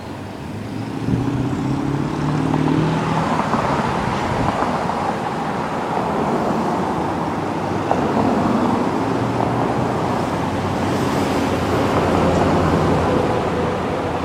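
Steady outdoor road-traffic noise that gets louder about a second in, with vehicle engines passing.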